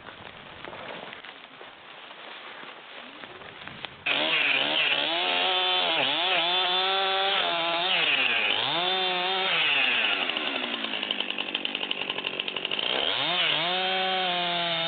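Two-stroke chainsaw running and cutting wood. It comes in suddenly about four seconds in, its engine note rising and dipping again and again as the chain bites into the wood. It settles lower for a few seconds, then revs up again near the end.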